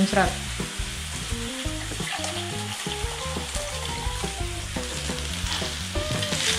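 Chopped onion sizzling and spattering noisily in hot oil as it is sautéed in a pan.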